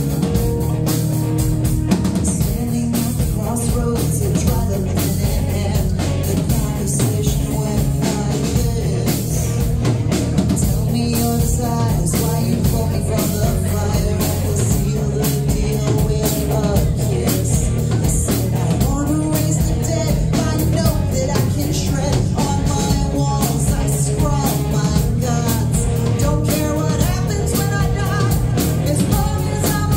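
Live rock band playing: a woman singing over electric guitar and a drum kit.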